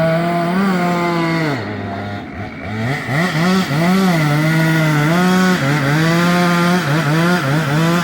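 Gas chainsaw running at high speed, dropping back toward idle a couple of seconds in, then revved again and again in short throttle bursts, as when cutting up a fallen tree.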